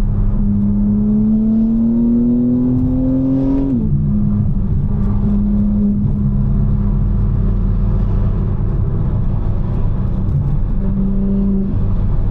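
BMW M4's twin-turbo S58 inline-six pulling under acceleration, its note rising for about three seconds, then dropping abruptly at an upshift about four seconds in, after which it runs steadily at cruising speed.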